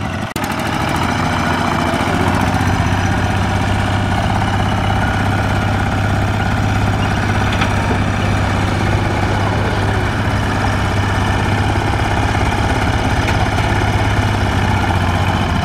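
Single-cylinder diesel engine of a Kubota ZT120 two-wheel walking tractor running steadily under load as it pulls a wooden trailer carrying three men. It gives one unbroken low engine note throughout.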